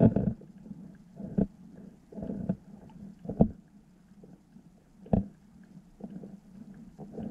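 Underwater sound in a shallow eelgrass harbour bottom: irregular low thumps and grunt-like rumbles, about five strong ones a second or so apart, over a faint steady low hum.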